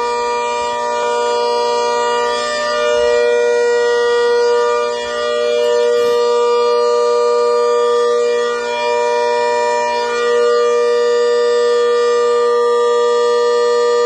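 A giant horn sounding one long, loud, steady siren-like tone, dipping slightly in loudness a couple of times.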